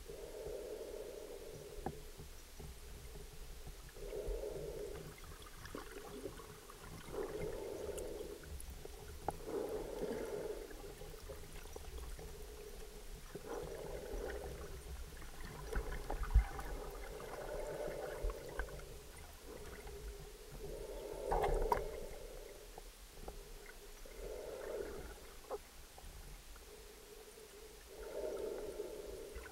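Muffled underwater sound picked up through a camera's underwater housing: a dull whoosh that swells and fades about every three to four seconds, with scattered small clicks.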